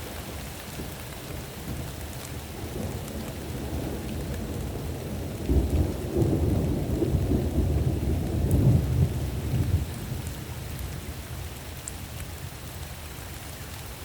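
Steady rain with a long roll of thunder. The thunder starts suddenly about five seconds in, is loudest around nine seconds, and rumbles away by ten seconds.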